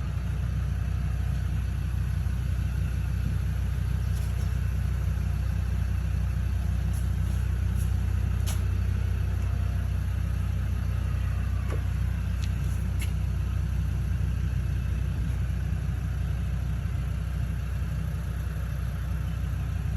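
Steady low engine rumble, like a vehicle idling, with a few faint clicks and taps over it.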